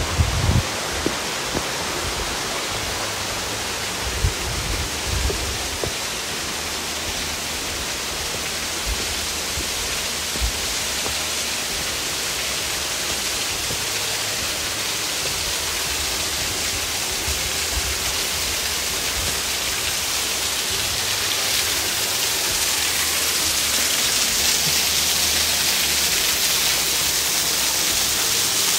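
Running water, a steady rushing noise that grows louder and brighter over the last several seconds. A few low thumps come in the first few seconds.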